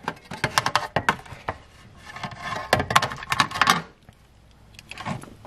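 Quick run of light clicks and clatter from hands handling loose wiring and plastic trim in a car footwell, stopping about four seconds in, with a few more clicks near the end.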